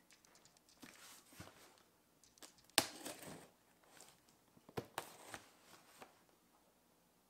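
A Mora knife slitting packing tape on a cardboard box, with scraping, tearing and rustling as the box is handled. A sharp click just under three seconds in is the loudest sound.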